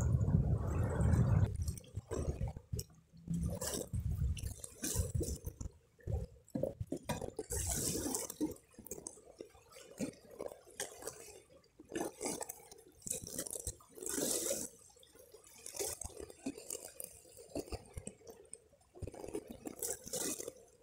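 Small waves lapping and splashing against shoreline rocks in irregular, uneven bursts. A loud low rumble in the first couple of seconds stops abruptly.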